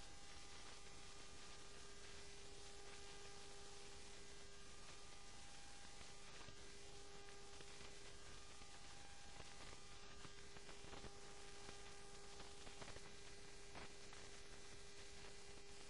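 Faint steady hiss with a low, steady hum tone underneath and a few faint clicks: the noise floor of a silent film's soundtrack.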